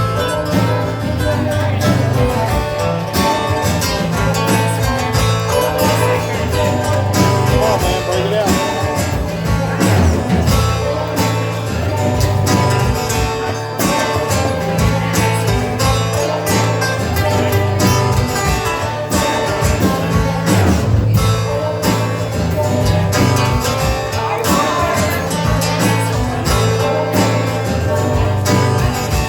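Band music led by guitar in a country style, playing a steady groove before the vocals come in.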